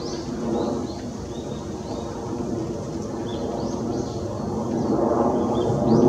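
Low, steady rumble of distant motor traffic that swells louder near the end, with faint short high bird chirps scattered over it.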